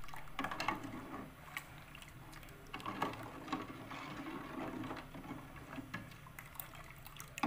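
A metal ladle stirring passion fruit syrup in a metal cooking pot: irregular scrapes and clinks against the pot's sides and bottom over the sloshing liquid, stirring to dissolve the sugar.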